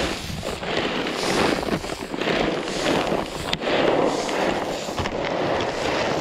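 Shelled deer corn pouring from a bag and pattering onto dry grass and dirt as it is spread in a long line, a steady rushing patter.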